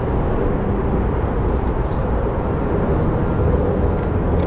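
Wind buffeting the microphone: a steady, loud low rumble with no distinct events.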